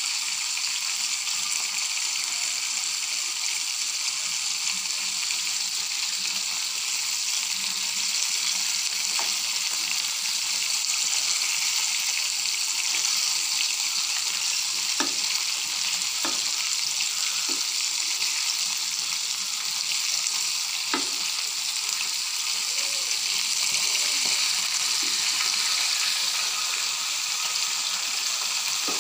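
Battered chicken pieces deep-frying in hot oil in a kadai, with a steady sizzle. Several sharp clicks come through the middle as a metal spatula turns the pieces against the pan.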